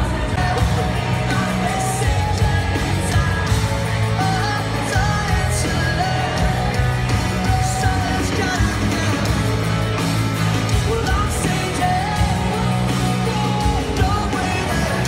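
Live pop-punk band playing a song with a lead singer, amplified through a concert PA and heard from within the crowd.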